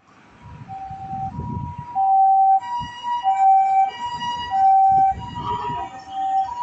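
Japanese ambulance's electronic two-tone siren, alternating a higher and a lower note about every 0.6 seconds, the sign of an ambulance running on an emergency call. It grows louder over the first two seconds, with a low rumble of vehicle noise underneath.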